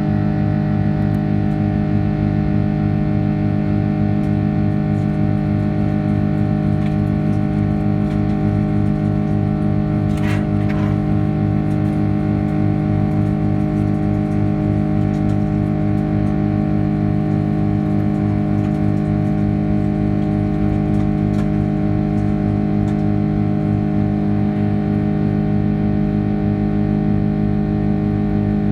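Steady drone inside an Airbus A330-200 cabin: the airliner's engines and cabin systems hum evenly, with no rise in power, and a low pulsing throb runs underneath. A brief short sound stands out about ten seconds in.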